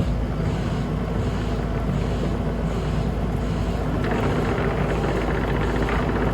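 Kobelco SK85 midi excavator's diesel engine running steadily, getting a little louder and fuller about four seconds in.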